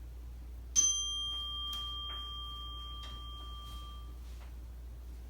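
A meditation chime struck once, ringing with a clear, steady tone that fades out after about three and a half seconds, marking the end of the resting pose.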